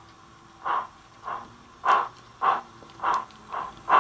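Steam exhaust chuffs from a Bachmann BR Standard 4MT tank locomotive model's Wheeltappers DCC sound decoder, played through a small sugarcube speaker. The beats come about every half second and gradually quicken as the loco works along with its train.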